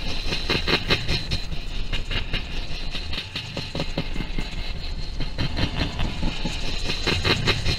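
Experimental noise track: a constant low rumble under a high hiss, thick with irregular clicks and crackles, a little thinner near the middle and denser again near the end.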